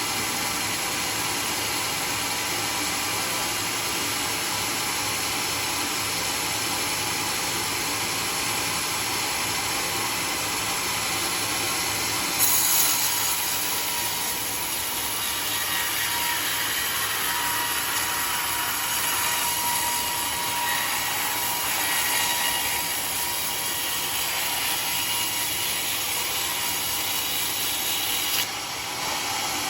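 Large sawmill saw running and cutting through a teak log: a steady machine noise that turns brighter and louder as the blade bites, from about twelve seconds in until shortly before the end.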